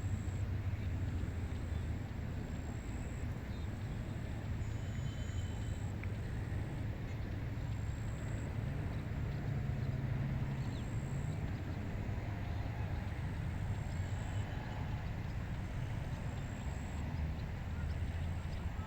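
Steady wind blowing over a rice paddy, with a continuous low rumble and a few faint high chirps about five seconds in.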